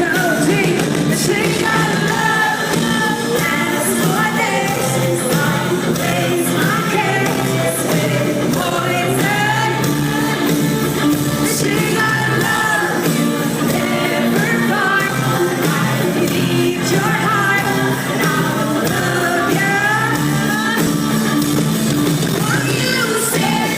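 Live rock-and-roll pop song in concert, a woman singing lead over a full band, recorded from the audience in a large hall.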